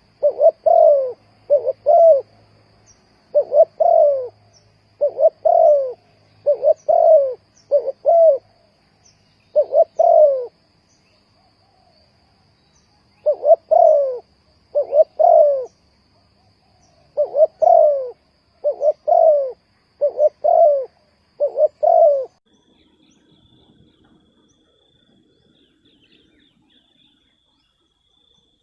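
Spotted dove cooing: short phrases of two or three low notes, repeated every second or two with occasional longer pauses, stopping about three quarters of the way through. A faint steady high tone runs behind.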